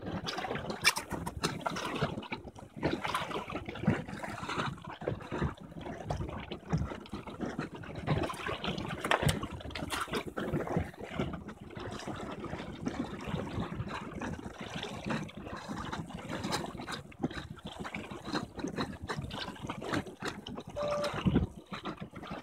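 Choppy water splashing and sloshing near the microphone in irregular slaps.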